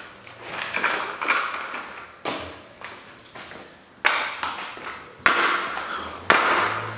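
High heels pressing down on a plastic toy car on a sandy floor: cracking and creaking plastic with heel knocks and grit crunching. The sounds come as several sudden hits, each trailing off, the loudest in the second half.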